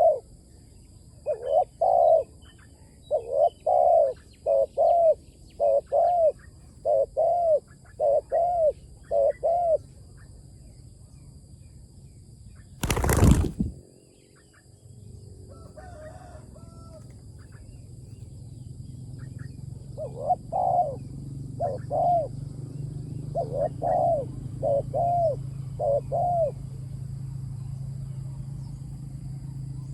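Spotted dove cooing: a decoy bird giving a run of short, arching coo notes, more than one a second, for about ten seconds. A brief loud burst of noise comes about thirteen seconds in. The cooing resumes in a shorter run near the two-thirds mark, over a low steady hum.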